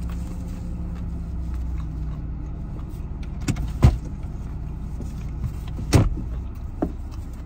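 Steady low hum of a parked car running, heard inside the cabin. A few sharp knocks and clicks come about three and a half to four seconds in and again around six and seven seconds in.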